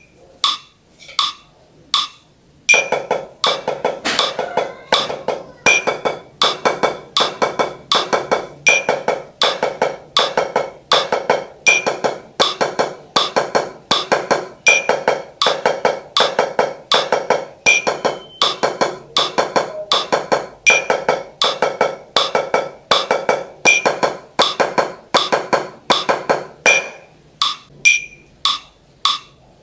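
Ragadeks rudiment exercise played with two wooden sticks on a drum with a white head, to a metronome click at 80 bpm. A few metronome clicks count in, steady repeating stroke patterns start about two and a half seconds in and stop a couple of seconds before the end, and the clicks come faster, at 100 bpm, before the playing picks up again at the very end.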